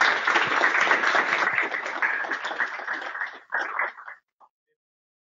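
Audience applauding: many hands clapping at once, dying away about four seconds in.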